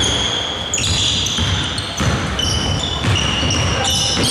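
Basketball game on a hardwood court: sneakers squeak on the floor in a string of short, high squeaks, overlapping one another, while the ball thuds as it is dribbled.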